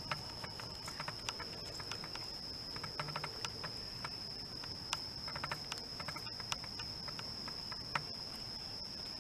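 Cats chewing and crunching dry treats off newspaper, giving irregular sharp clicks and crunches. A steady high-pitched tone runs underneath.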